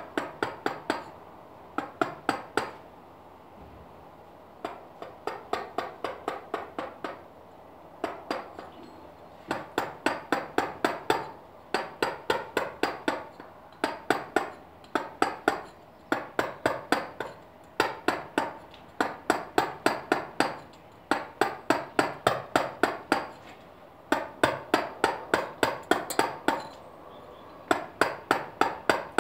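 Mallet striking a chisel into limestone during hand stone carving: quick runs of sharp taps, about five a second, with short pauses between runs.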